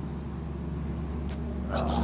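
An engine running steadily with a low hum that firms up over the last half second, with a short voice-like sound near the end.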